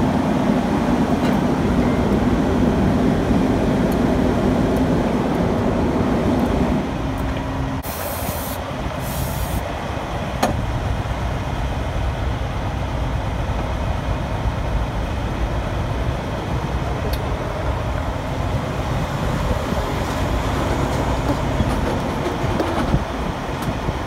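Steady mechanical hum, louder for the first seven seconds, with two short hisses about eight and nine seconds in and a single sharp click about ten seconds in.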